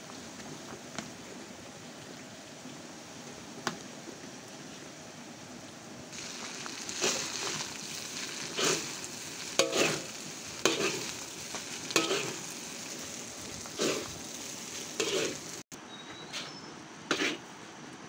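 Vegetable fried rice sizzling in a wok on a portable gas stove, with a spatula scraping and tossing it. A steady hiss runs throughout; about six seconds in it grows louder and sharp spatula strokes come about once a second.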